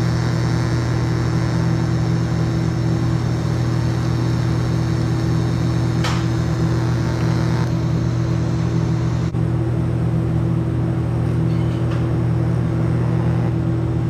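TIG welding machine giving off a steady electrical hum while it welds steel tubing. A thin high whine rides over it for the first half.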